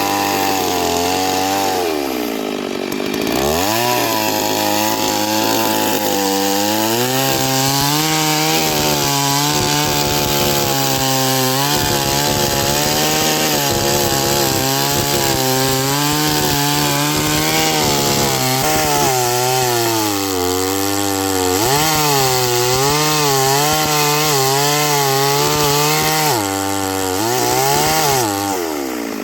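Two-stroke chainsaw running under load as it cuts through wood. The engine note wavers as the chain bites. About three seconds in and again near the end, the pitch dips and climbs back.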